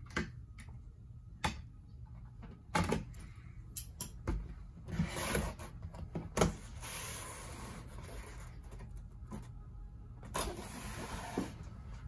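Cardboard box packaging being handled: a lid flap opened, a card insert lifted out and an inner cardboard tray slid out, with scattered knocks, scrapes and rustles.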